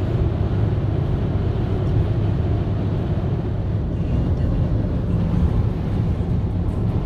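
Steady cabin noise of a car cruising at highway speed: tyres on the road and the engine as a low, even rumble.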